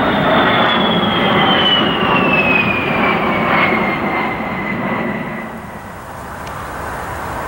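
A-10 Thunderbolt II's twin General Electric TF34 turbofan engines passing overhead: a high whine sliding steadily down in pitch over a broad rumble, growing quieter about six seconds in as the jet moves away.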